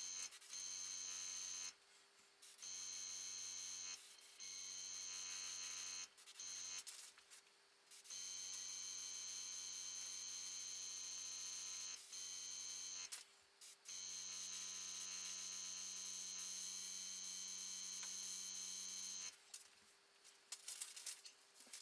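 Small tankless airbrush compressor humming steadily, starting and stopping repeatedly in runs of about one to five seconds. The longest runs come in the middle and the second half, and a few faint clicks fall in the gaps near the end.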